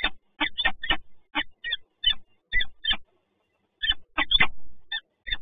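Peregrine falcon calling: a run of short, repeated notes in uneven groups, with a brief pause a little past the middle.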